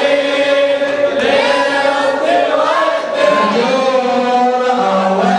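Male voices chanting a Shia mourning elegy (latmiya) together: sustained unaccompanied voices with one voice sliding in pitch above them.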